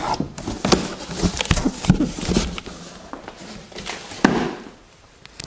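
Cardboard box and molded pulp packing being handled on a wooden table: irregular scraping, rustling and light knocks, with one sharp knock about four seconds in.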